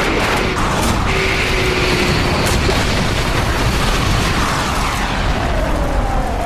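Dramatized sound effect of a jet airliner exploding and breaking up in flight: a loud, continuous rumbling boom with a whine that falls slowly in pitch through the second half.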